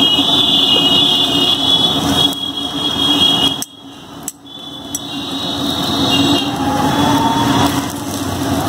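Street-stall cooking on a large iron tawa as parathas are turned. A steady noise runs through it with a high-pitched whine and a low hum; it drops out suddenly about three and a half seconds in and slowly builds back.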